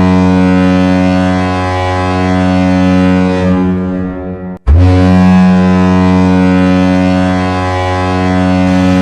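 San Jose Sharks goal horn, a deep steady blast with a low, even pitch. It drops out briefly about four and a half seconds in, then sounds a second long blast.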